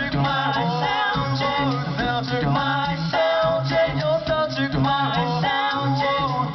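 A cappella vocal group singing in harmony, with a low sung bass line pulsing underneath the higher voices.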